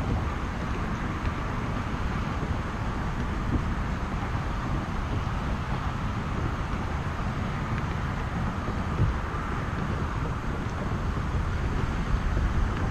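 Wind rushing over the action camera's microphone, a steady low rumble, with a few faint knocks.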